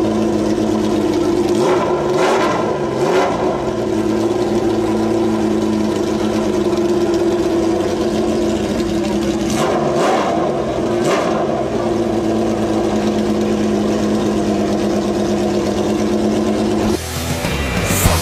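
Motorcycle engine running at high revs with a steady, high-pitched exhaust wail, given out as sounding like a Ferrari. Its pitch dips and climbs back a few times. Rock music cuts in near the end.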